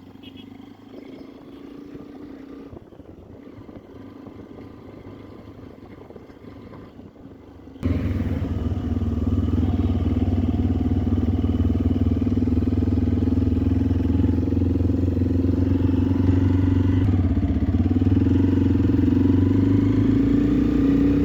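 Motorcycle engine running steadily while riding, with road and wind noise; about eight seconds in it abruptly becomes much louder and fuller, and the engine note rises slightly near the end.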